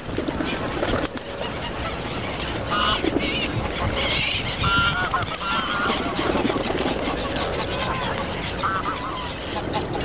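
Canada geese honking in short, scattered calls, mixed with other waterbirds calling, over a steady background rush.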